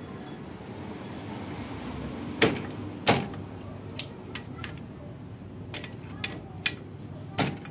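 A handful of sharp knocks and clicks, the two loudest about two and a half and three seconds in, over a steady low hum.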